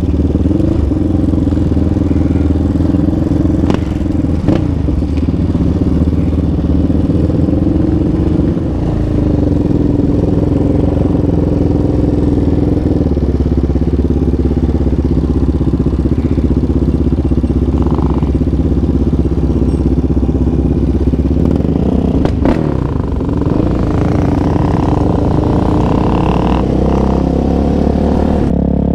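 Yamaha Raptor 700R ATV's single-cylinder engine running at low speed close to the microphone, the throttle opening and easing off a few times. A few short knocks of clatter stand out, a few seconds in and again about two-thirds through.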